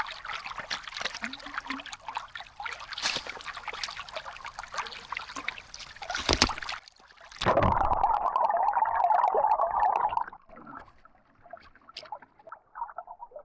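Water in a creek trickling and splashing. About halfway through, a container is dipped in and fills with a loud, gurgling rush of water for a few seconds.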